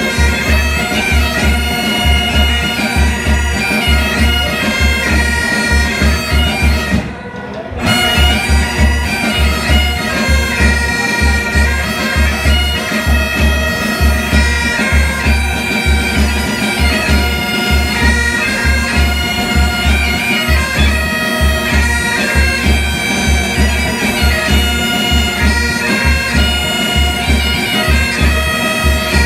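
Pipe band playing a tune: Highland bagpipes' steady drones and chanter melody over a regular bass drum beat, with a brief break in the sound about seven seconds in.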